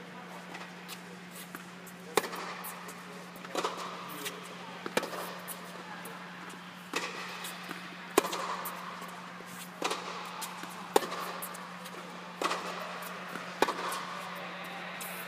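Tennis rally on an indoor hard court: sharp pops of the ball off racquet strings and off the court every second or so, each ringing briefly in the hall, over a steady low hum.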